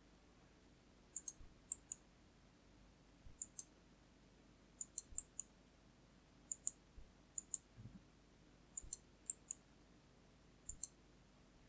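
Quiet, irregular sharp clicks from working a computer's controls, often two or three in quick succession, spread across the whole stretch.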